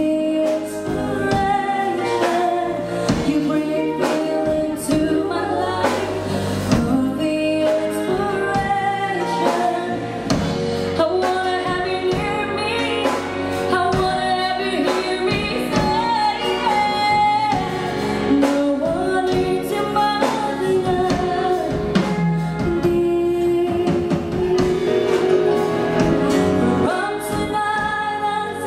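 Live pop band playing a song, with women singing the lead over electric bass, keyboards and a steady drum-kit beat.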